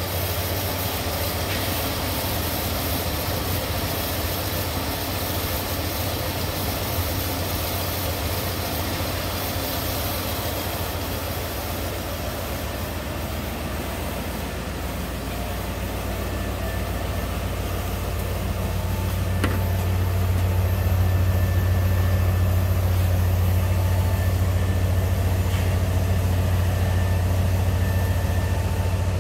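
1996 Ford Bronco's 5.8-litre V8 idling steadily. It gets louder about two thirds of the way through, as it is heard up close at the tailpipe.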